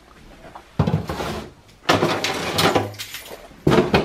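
Rummaging through kitchen storage: three bursts of scraping and knocking as containers and items are shifted about, the middle one the longest.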